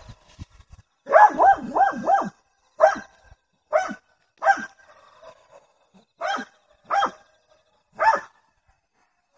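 Hunting hound barking at a wild boar it is holding at bay. A quick run of four barks comes about a second in, then single barks follow at gaps of about a second, ten in all.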